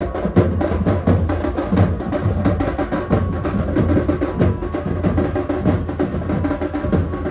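Drumming with a fast, steady beat of sharp strikes over a low, continuous rumble.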